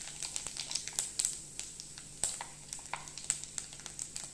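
Mustard, cumin and fenugreek seeds frying in hot sesame oil in a clay pot, a sizzle broken by many irregular sharp pops as the mustard seeds splutter. The spluttering is the cue that the tempering is ready.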